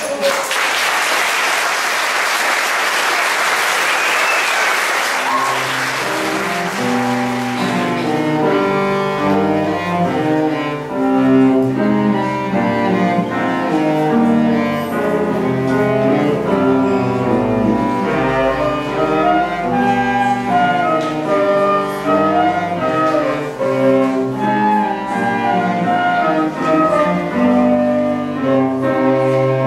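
Audience applause for about the first six seconds. Then a children's ensemble of violins, cello and piano starts playing a piece.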